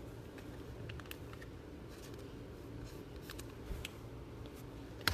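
Trading cards being handled, with faint scattered clicks and light rustling over a low steady hum, and a sharper click near the end.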